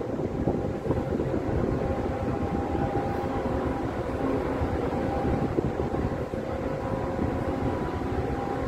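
Steady low rumble of large engines running, with a faint steady hum over it.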